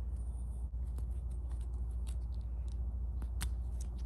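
Faint small clicks and ticks of handling as rubber O-rings are worked onto a machined metal oil cap, one click a little louder near the end, over a steady low hum.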